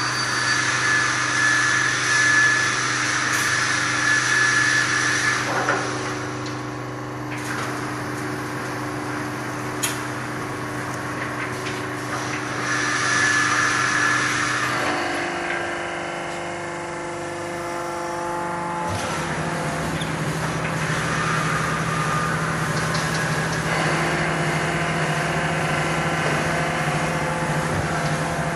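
An automatic wire-mesh fence panel welding and bending line running, giving a steady machine hum made of several held tones. The tones shift a few times, and there is one sharp click about ten seconds in.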